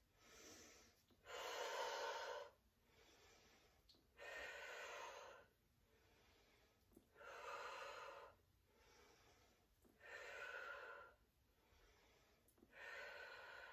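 A woman's audible exhalations, five in all, one about every three seconds and each about a second long, with fainter inhalations between. She is exhaling on each lift and glute squeeze of a kneeling hip-thrust exercise and inhaling to relax between reps.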